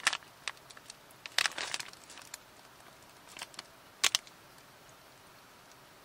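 Plastic candy bag crinkling as it is picked up and turned over in the hand: short irregular crackles, a cluster in the first half and the loudest about four seconds in.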